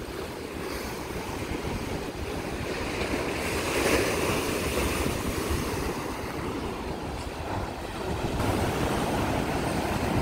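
Rough sea surf breaking against shoreline rocks, with wind buffeting the microphone; the surf swells loudest about four seconds in.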